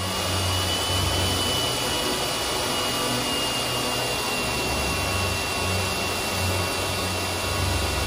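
Lakoni Laguna 70 electric pressure washer running, its high-pressure water jet spraying onto a car's bodywork: a steady hiss with a thin, steady high whine.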